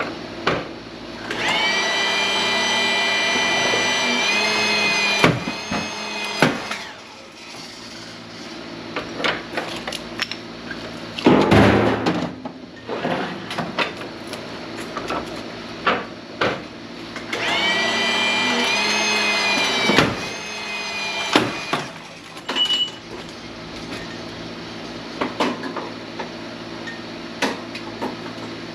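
Hydraulic press cracking 1000-watt transformers. Twice, a pump whines steadily under load for a few seconds, and each time it ends in sharp cracks as the welded cores give way. In between, metal pieces clank and a loud crunching burst comes near the middle.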